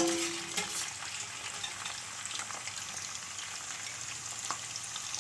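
Pre-boiled beef mince and cumin seeds frying in hot oil in a non-stick pan: a steady sizzling hiss. It opens with a brief knock right at the start.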